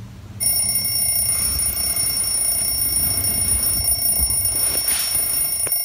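A steady, high-pitched electronic alarm tone starts about half a second in and holds unbroken.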